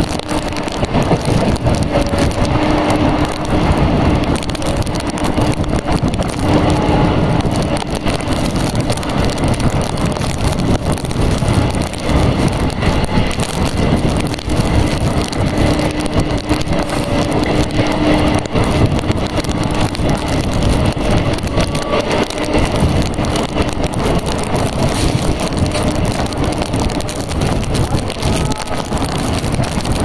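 Electric multiple unit (EMU) suburban train running at speed, heard from its open doorway: continuous wheel-and-rail noise mixed with wind rush, with a steady low hum that comes and goes.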